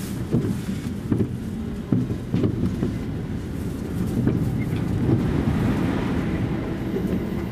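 Electric commuter train running along the line, heard from inside the front car behind the driver's cab: a steady low rumble of wheels and motors with short sharp clicks at uneven intervals.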